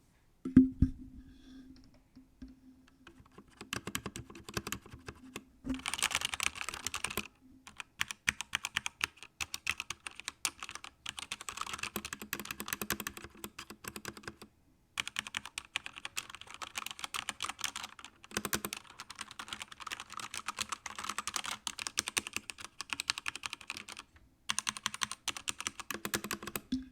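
Fast typing on a modded mechanical keyboard with modded switches and keycaps: dense runs of keystroke clicks broken by brief pauses, after a single loud knock about half a second in.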